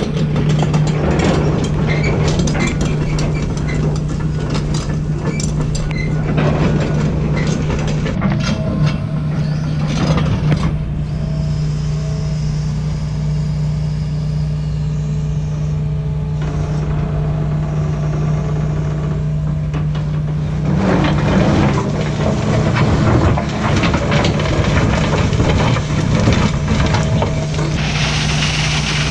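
Heavy diesel construction machinery running steadily under load, with metal clanking and knocking for the first ten seconds or so and again near the end, and a quieter whining stretch in between.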